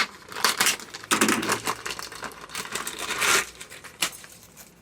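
Plastic packaging crinkling and rustling in irregular bursts as items are handled and unwrapped, dying down near the end.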